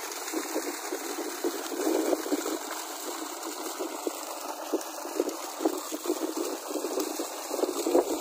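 Water pumped up by a 3 HP submersible borewell pump, flowing steadily out of the pipe with irregular splashing.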